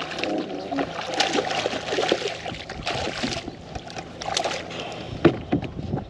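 Water splashing as a big hooked bass thrashes at the surface beside the boat while it is landed, with a sharp knock against the boat near the end.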